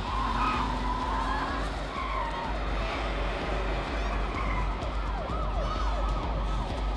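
Several police sirens wailing at once, switching to a quicker up-and-down yelp about five seconds in, over a steady low rumble of city traffic.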